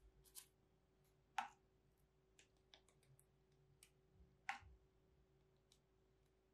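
Quiet handling sounds: a scatter of faint clicks, with two louder light taps about a second and a half and four and a half seconds in, over a faint steady hum.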